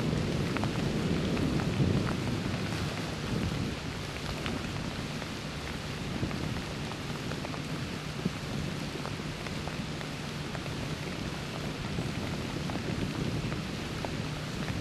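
Freezing rain falling steadily, a constant patter of many small ticks on branches, dead leaves and nearby gear. A low rumble sits underneath, strongest in the first two seconds.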